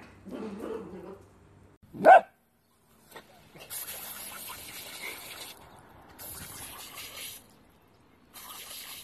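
Dachshund puppy barking: a softer bark just after the start, then one loud sharp bark about two seconds in. Then a garden sprinkler's water spray hissing in three stretches with short breaks between.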